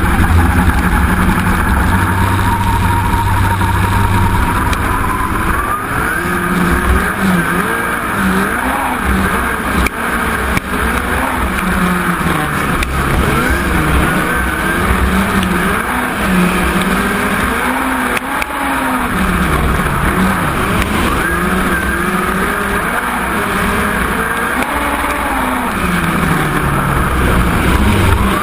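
A midget race car's engine heard from the car's own cockpit at racing speed, with tyre and dirt noise. The engine runs fairly steadily for the first few seconds, then its pitch rises and falls every couple of seconds as the driver accelerates and lifts around the dirt oval.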